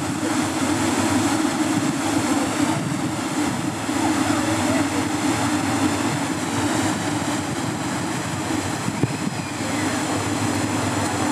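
Steady, even hum of a large swarm of light-show quadcopter drones hovering overhead.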